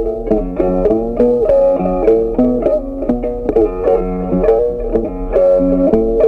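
Background music: a melody on a plucked string instrument, with notes changing several times a second at a lively pace.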